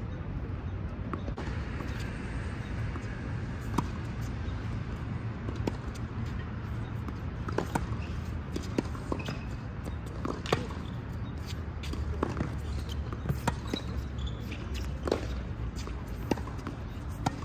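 Tennis rally on a hard court: sharp pops of the ball struck by rackets and bouncing on the court, coming every second or two, over a steady low rumble.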